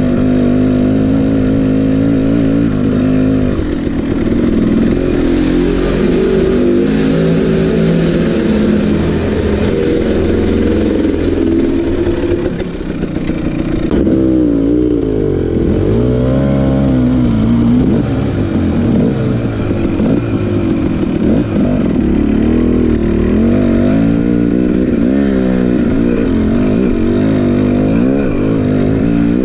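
KTM 300 two-stroke dirt bike engine revving up and down with the throttle while riding. Its pitch rises and falls repeatedly, with the biggest swings in the second half.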